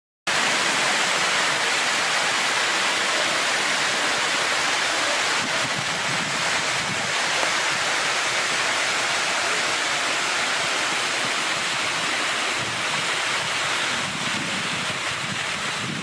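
Steady rushing hiss with no tones in it, cutting in abruptly just after the start and easing slightly near the end.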